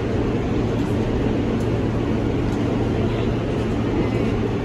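R160 subway car running, heard from inside the car as it pulls into a station: a steady rumble of wheels and motors with a constant low hum.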